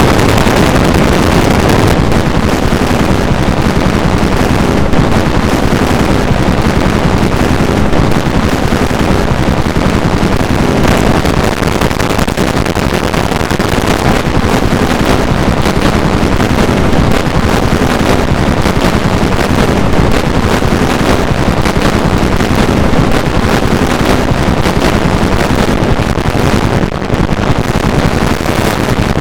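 An Android phone alarm sound mangled by many stacked rounds of digital effects into a loud, continuous wall of harsh noise, with no melody left to pick out. It dips briefly about 27 seconds in.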